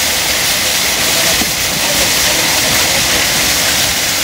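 A long line of nested metal shopping trolleys rolling over tarmac, pushed by a small electric trolley pusher: a steady, even rolling noise.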